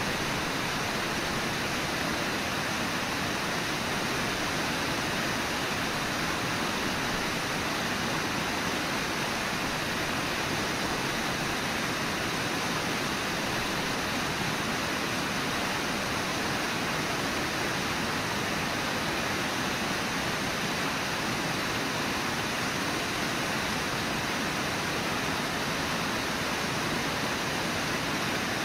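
Steady, unbroken rush of flowing river water.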